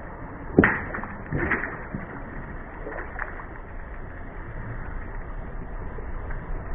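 A car crushing objects under its tyres over a steady rumble: a sharp crack about half a second in, a weaker crunch about a second later, and a faint one near the middle.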